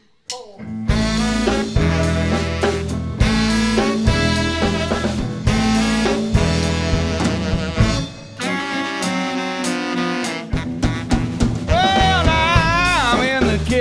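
Live R&B band with saxophone, bass and drums kicking into the instrumental opening of a funky R&B song about half a second in. The bass drops out briefly past the middle, then the full band comes back in.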